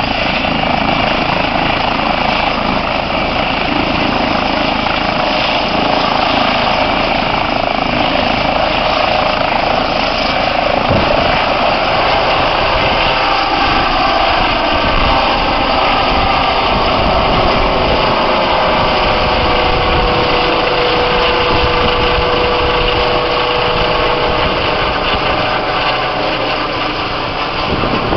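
Eurocopter EC135 helicopter with twin Turbomeca Arrius turbine engines running at takeoff power, its main rotor and engines loud and steady as it lifts off and climbs away. A steady whine comes through over the rotor noise in the second half.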